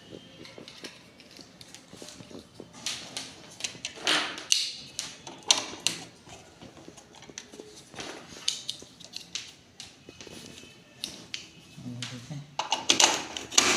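Scattered plastic clicks, taps and rustles from handling a phone charger and its cable as it is plugged into an extension board socket, with a louder cluster near the end.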